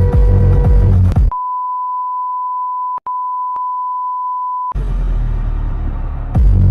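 Electronic dance music with a heavy beat, cut off about a second in by a steady single-pitch beep tone that holds for about three and a half seconds, with a brief dropout midway; then the music returns, quieter at first and full again near the end.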